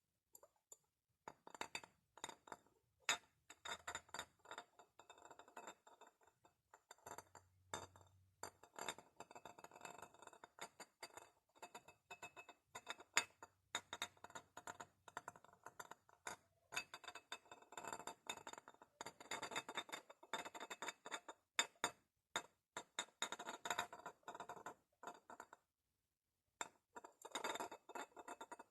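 Glass bottles being tapped and clinked, a long run of quick, irregular ringing taps with a couple of short pauses.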